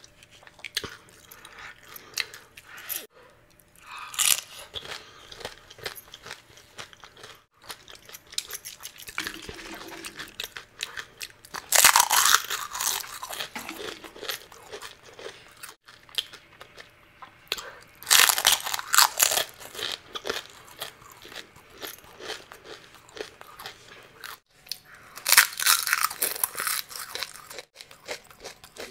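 Crisp pani puri (golgappa) shells cracking and being crunched and chewed in the mouth. There are four loud bouts of crunching spaced six to seven seconds apart, with small crackles in between.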